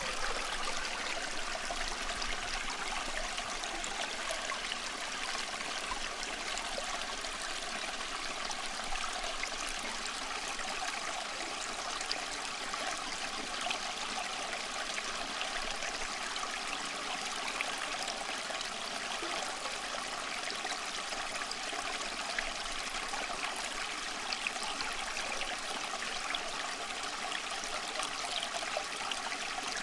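Steady, unbroken rushing noise like a flowing stream, the masking bed of a subliminal audio track.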